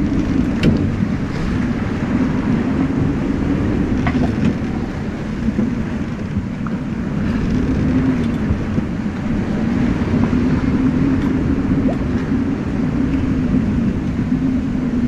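Wind buffeting the microphone over water rushing and splashing past the hull and wake of a Vancouver 34C sailing yacht under way in a choppy sea: a loud, steady noise that swells and eases, with a few light clicks.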